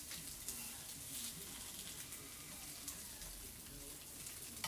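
Sliced red peppers sizzling quietly in olive oil in a hot frying pan, with a few light clicks of metal tongs against the pan as they are turned.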